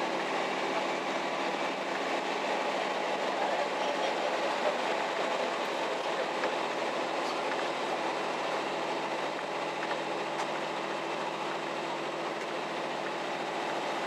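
Kashima Rinkai Railway diesel railcar running at speed, heard from inside the car: a steady engine hum and rolling wheel noise, with a few faint clicks from the rails.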